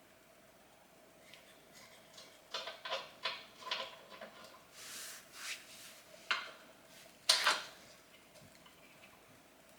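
Small metal parts clinking and knocking together as they are handled: a quick run of clinks about two and a half seconds in, a short scrape, a knock, then a louder metallic clatter about seven seconds in.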